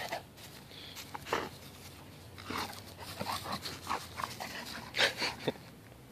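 English Cream Golden Retriever making a string of short, scattered sounds while playing with a stuffed toy. The loudest comes about five seconds in.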